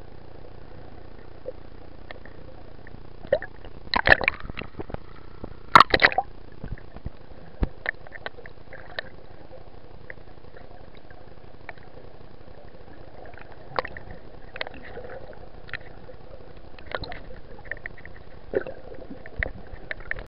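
Underwater sound picked up by a camera beneath the surface: a steady hiss with scattered faint clicks and gurgles, and two loud bubbly bursts about four and six seconds in, typical of a scuba diver's exhaled bubbles leaving the regulator.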